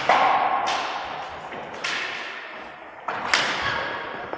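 Several sharp knocks of indoor hockey sticks striking the ball and the ball hitting the sideboards, each ringing out in a long hall echo.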